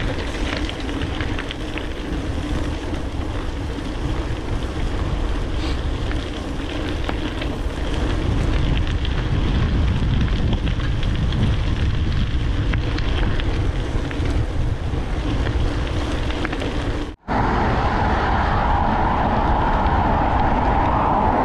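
Wind buffeting the microphone on a moving gravel bike, a heavy, uneven rumble, with the bike's rolling noise underneath. About seventeen seconds in it cuts out for an instant and comes back as a steadier, higher hum.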